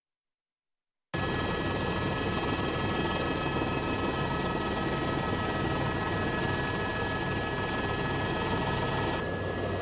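Steady helicopter rotor and engine noise that cuts in abruptly about a second in, after silence.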